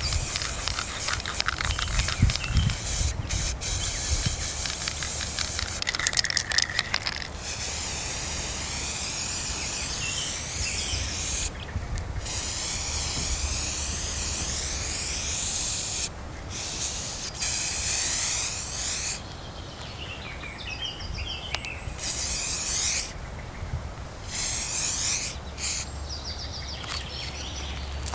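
Aerosol spray can hissing in repeated bursts of one to four seconds each, with short pauses between them.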